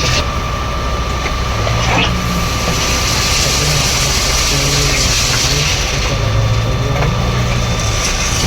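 Concrete batching plant machinery running: a steady mechanical drone with a constant thin whine. A hissing rush comes in about two and a half seconds in.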